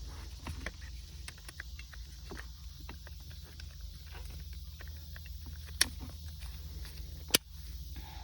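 Plastic shifter-console trim of a car being handled and pressed back into place: many light clicks and rattles, with two sharp snaps in the second half about a second and a half apart as clips seat.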